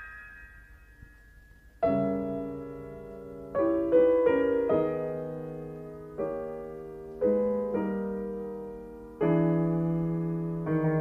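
Slow solo piano music. After a quiet first two seconds, chords are struck every second or two, and each one rings and fades.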